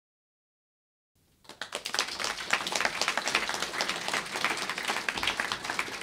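Audience applauding: dense clapping from many hands that starts about a second in.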